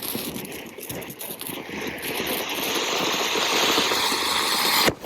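A burning Diwali firecracker: dense crackling with a hiss that grows louder over the second half. It breaks off abruptly just before the end.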